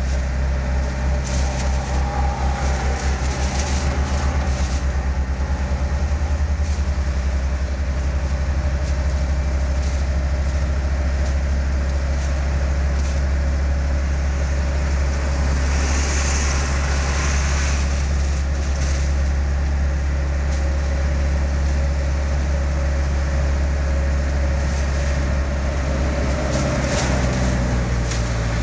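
Engine and road noise heard inside the cab of a large vehicle cruising at highway speed: a steady low drone with a faint steady whine over it.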